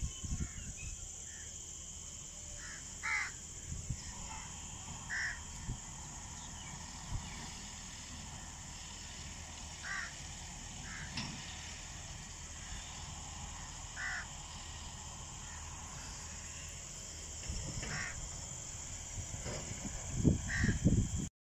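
Crows cawing, single short caws every second or few, over a steady high-pitched insect drone. A low rumble of wind on the microphone swells in gusts near the end.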